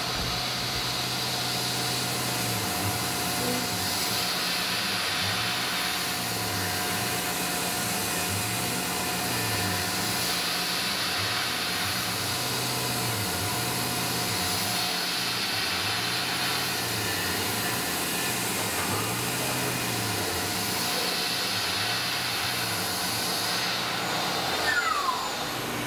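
Tormach CNC mill spindle running with a steady air-blast hiss as the end mill takes a finishing pass around a gear's bore, recut with cutter compensation to bring it to size. A low hum rises and falls about every two seconds as the tool circles, and near the end a falling whine sounds as the spindle winds down.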